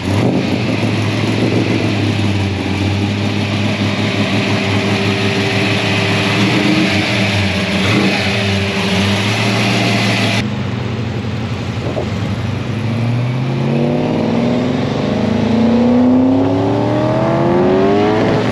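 XC Ford Falcon GS engine idling steadily, heard close to its tailpipes. After an abrupt cut, a car engine accelerates on the road, its pitch rising, dropping and rising again as it goes up through the gears.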